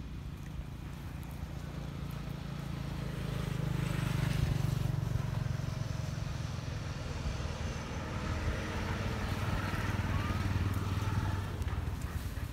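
Motor vehicle engines on the road: a low engine hum with road noise that swells about four seconds in, eases, and swells again around ten seconds, like traffic passing.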